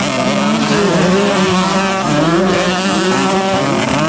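Several racing motorcycle engines running hard together, their pitches rising and falling as the riders rev and shift through the gears.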